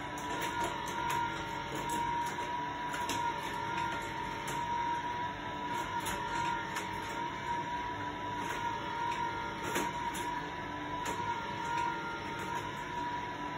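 The motorized spiral car lift of a Hot Wheels Super Ultimate Garage toy playset, running steadily with a constant whine. Small clicks and rattles come at irregular moments as die-cast toy cars ride up the screw.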